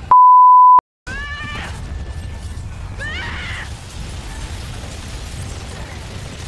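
A loud, steady pure beep tone for under a second, cut off by a moment of dead silence, then the soundtrack of a staged TV battle: a continuous din with two high falling cries, about a second and about three seconds in.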